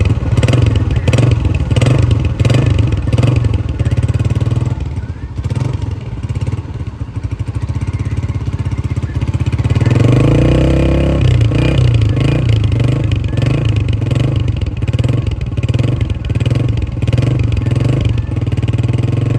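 Honda CG125's single-cylinder four-stroke engine running through its exhaust with a steady pulsing beat. About halfway through it is revved up and held at higher revs, running louder.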